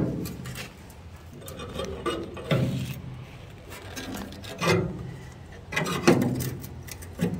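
Steel support bracket being rocked back and forth with slip-joint pliers to break its spot welds loose. The metal creaks and scrapes in several separate strokes.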